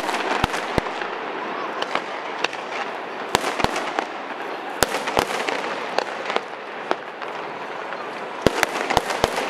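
Aerial fireworks shells bursting in sharp bangs, mostly in pairs: two just after the start, two in the middle, two a little later and a quick run of four near the end. Steady background talk of people runs underneath.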